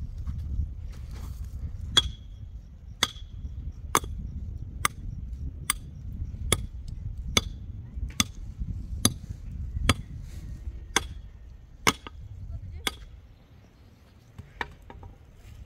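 A hand digging tool strikes repeatedly into stony, rocky soil, about thirteen sharp chops a little under a second apart. The chopping stops near the end, leaving a few faint clicks.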